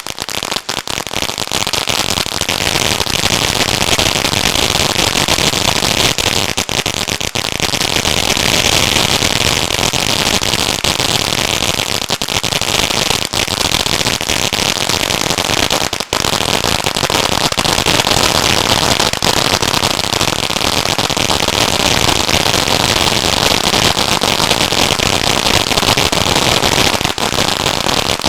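A 500-gram Magnus 'Phoenix Rising' fountain firework burning with a loud, steady hissing spray, dense with crackling.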